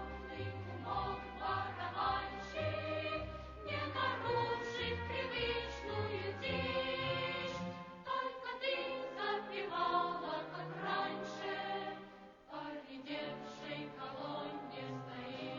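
Music: a song sung by a choir with instrumental backing, the bass line dropping away about eight seconds in.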